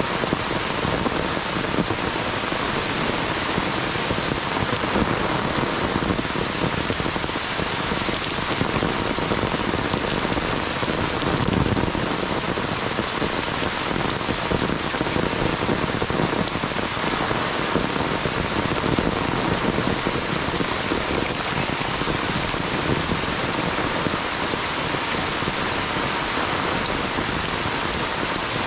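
Heavy monsoon rain falling steadily on leaves and a wet brick path.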